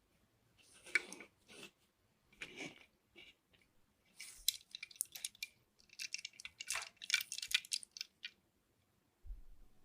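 Handling of a diecast model and its plastic packaging: irregular crinkling and crackling with sharp clicks, busiest in the middle, then a pause near the end.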